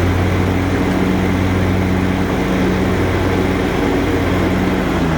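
Exmark Lazer Z 60-inch zero-turn mower's 25 horsepower Kohler Command Pro EFI engine running steadily with the cutting blades engaged and spinning under the deck. The blades and deck run super smooth, with no rattling or extra noise.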